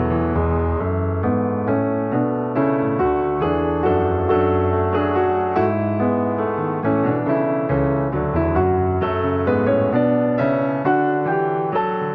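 Background piano music: a slow piece of struck notes and held chords.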